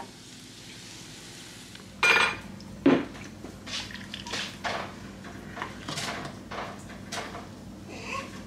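Tableware clinking and knocking at a dining table: a sharp clink about two seconds in and a thud just after, then a run of small, irregular taps and clicks as a glass jar of green salsa is handled and shaken out over a plate with a fork on it.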